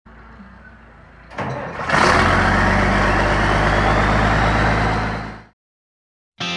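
International Harvester 1066 tractor's turbocharged six-cylinder diesel starting up: a short crank about a second in, then it catches and runs loud and steady, with a faint rising whine, until the sound cuts off near the end.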